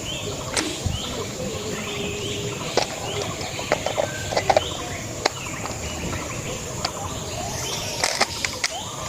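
Birds chirping over a steady outdoor hiss. Sharp clicks come in between: a few single ones, and quick clusters about four seconds in and again near the end.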